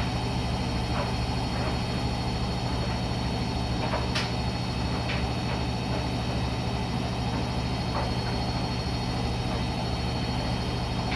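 Siemens iQ300 front-loading washing machine running mid-cycle: a steady low hum with a few faint clicks, the loudest about four seconds in.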